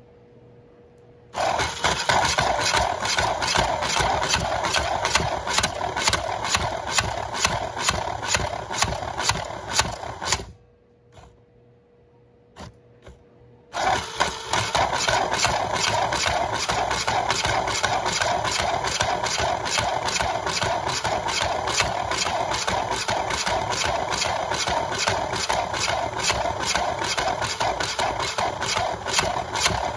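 Small battery-powered electric motor and gearing of a motorized breech mechanism running with a steady rattle of fast, even ticks; it stops about ten seconds in and starts again about three seconds later. It runs on a small test battery that is probably short of power for it.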